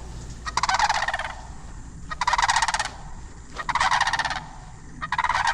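Turkeys gobbling: four gobbles in a row, each a fast rattling call lasting under a second, spaced about a second and a half apart.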